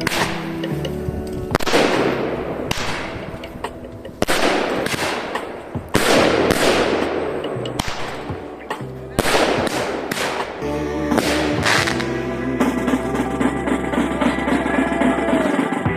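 Fireworks going off: about half a dozen sharp bangs, each trailing off in a hissing, crackling fade, over background music with a steady bass; the last few seconds are mostly music.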